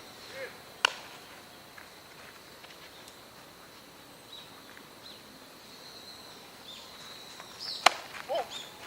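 Two sharp knocks of a club striking a ball, one about a second in and a louder one near the end.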